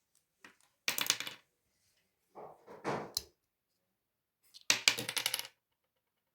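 Three short bursts of rattling clatter, like small hard objects knocked together while being handled, about two seconds apart.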